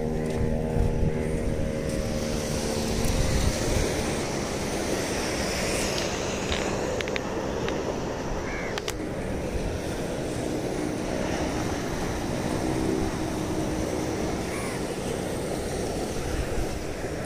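Steady wind and wave noise with a distant engine's even drone. The drone is strongest in the first few seconds, fades, and returns faintly in the second half, with a few light clicks in between.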